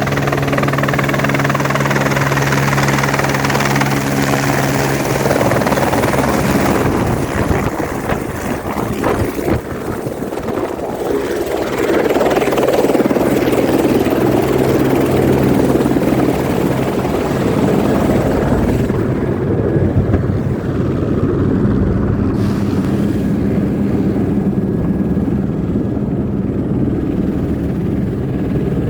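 Helicopter turbine and rotor running steadily, a loud constant drone with a low throb, dipping slightly then growing louder about twelve seconds in.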